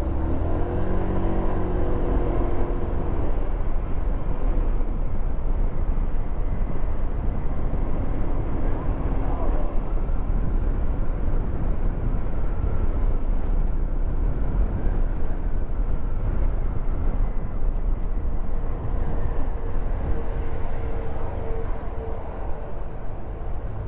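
Steady low rumble of a vehicle driving through city traffic, with faint pitched sounds passing over it, one held for a couple of seconds near the end.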